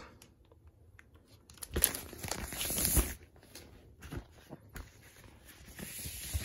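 Clear plastic protective record sleeve and LP jacket being handled and turned over, crinkling and rustling, loudest about two seconds in, followed by softer rustles and light clicks.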